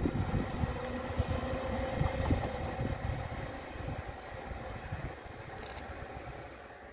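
Regional electric train running away down the line: the rumble of its wheels on the rails fading steadily as it recedes.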